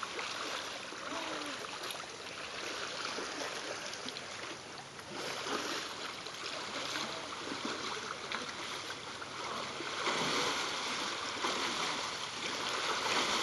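Shallow water splashing and churning as elephants and people wade through it, louder about ten seconds in.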